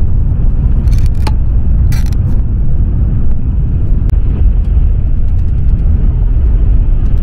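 Cabin noise of a Shinkansen Nozomi bullet train running: a loud, steady low rumble, with a few short sharp clicks about one and two seconds in.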